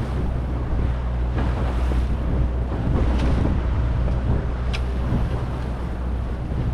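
Boat engine running steadily with a low hum, under wind buffeting the microphone and the rush of water past the hull.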